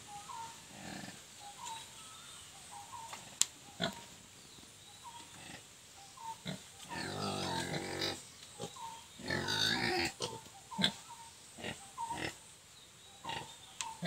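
Nepal-breed piglets grunting in short repeated calls, with two longer pitched calls a little past halfway and scattered sharp clicks.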